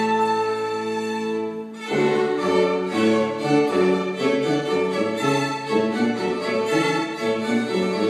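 Small chamber ensemble of violins, cello and tuba playing. Held chords give way to a short break about two seconds in, then moving string lines continue over lower sustained notes.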